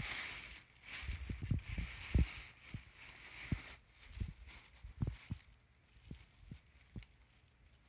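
Thin plastic bag crinkling and rustling as it is unwrapped by hand, with soft low thumps from handling. The crinkling stops about four seconds in, leaving only a few scattered thumps.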